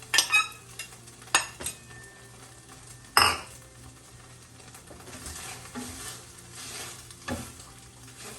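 Garlic and ginger sizzling in a hot cast iron pan while a utensil stirs them, knocking against the pan several times, the loudest knock about three seconds in.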